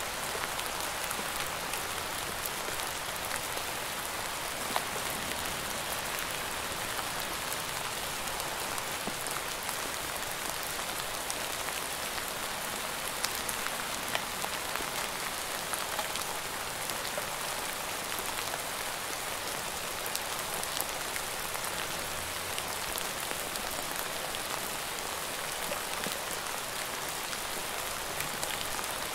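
Steady rain falling, with scattered sharp hits of individual drops.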